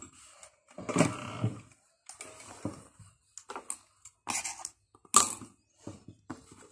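Fabric being handled and folded by hand at the sewing machine: irregular rustling and crinkling with small taps, loudest about a second in and again about five seconds in.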